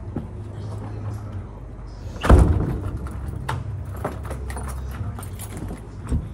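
An apartment door pulled shut with a loud thud about two seconds in, then keys jangling and clicking as the door is locked. A steady low hum runs underneath.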